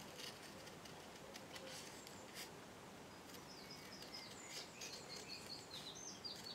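Small craft scissors snipping through thin cardstock, a few faint separate snips while a leaf shape is cut out freehand. From about halfway, a bird chirps faintly in the background in a run of short, high, falling notes.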